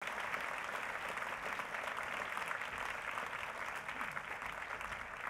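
Audience applauding: dense, steady clapping from a large room of people.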